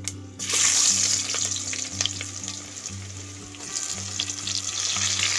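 Sliced onion hitting hot oil in a cooking pot: a sudden loud sizzle about half a second in that eases into steady frying.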